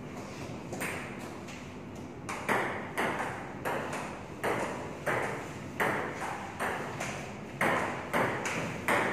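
Table tennis ball clicking off paddles and table in a rally: a single click near the start, then from about two and a half seconds in a quick, even run of about two clicks a second, each with a short ring of room echo.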